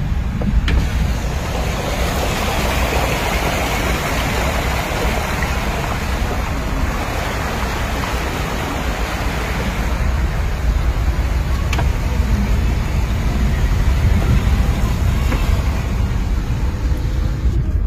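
Steady rushing noise with a low rumble, heard from inside a car moving through heavy rain on a flooded road: road, engine and rain noise together.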